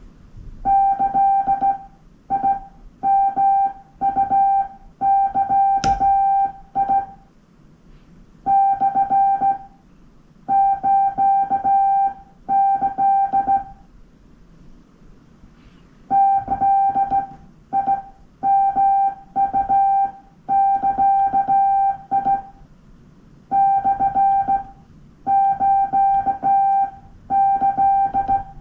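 Morse code (CW) sidetone, a steady beep of about 800 Hz, keyed by hand on a straight key in short dits and long dahs. The characters come in groups separated by pauses of one to two seconds.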